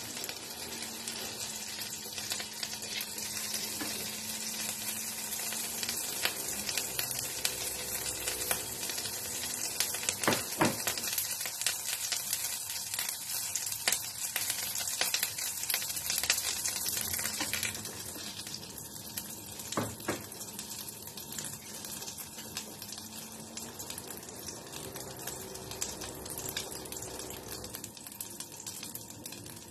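Food frying in a hot pan: oil sizzling and crackling steadily, with two sharp knocks about ten seconds apart. The sizzle eases somewhat past the middle.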